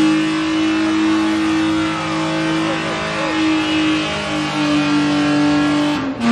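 BMW engine held at high, steady revs during a burnout while the rear tyres spin in place. The note steps slightly about four seconds in, and the revs fall just before the end.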